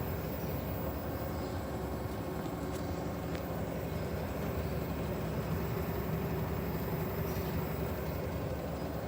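LG T2512VBTB washing machine's BLDC motor running steadily in a spin-only test: an even hum with a low rumble.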